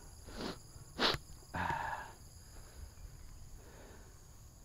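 A cyclist breathing hard, out of breath: a few loud exhales and a sharp sniff in the first two seconds, then quieter breathing. Insects drone steadily and high-pitched behind it.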